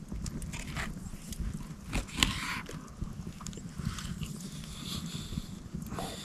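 Eating sounds close to the microphone: a utensil clicking and chewing, over a steady low rumble.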